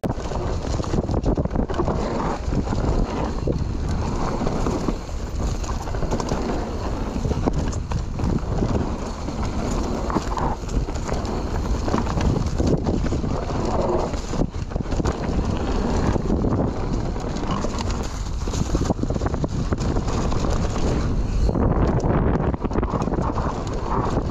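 Mountain bike descending a dry dirt trail, heard through an action camera riding along: tyres rumbling over the ground, with a constant run of knocks and rattles from the bike and chain as it crosses bumps and roots.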